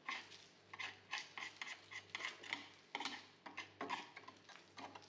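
Small screwdriver scraping and picking at rusted steel and old filler in a van's rotten wheel arch: a quick run of irregular scratches and clicks, several a second.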